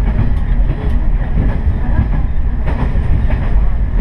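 Noto Railway diesel railcar running along the line: a steady low rumble with a few clicks of the wheels over rail joints.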